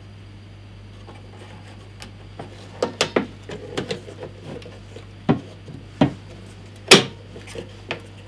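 Sharp clicks and knocks of the levers and clamp parts on a Parkside portable metal band saw being worked by hand. They come as a scattered run of single knocks starting about three seconds in, the loudest near the end.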